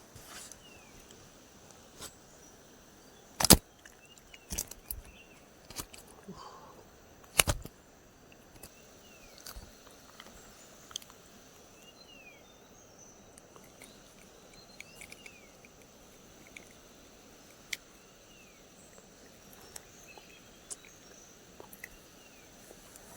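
Scattered sharp knocks and clicks, two much louder than the rest about three and a half and seven and a half seconds in, over a quiet outdoor background with faint short bird chirps.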